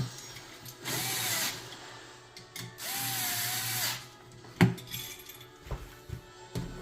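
Cordless drill/driver whirring in two short runs, the second about a second long, tightening a screw on a wall switch, followed by a sharp click.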